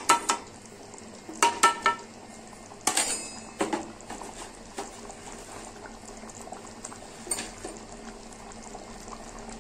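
Watery potato curry boiling in a steel kadhai, a steady low bubbling, while a steel spoon clinks and scrapes against the pan and plate as mashed potato is added, several ringing clinks in the first four seconds and one more later.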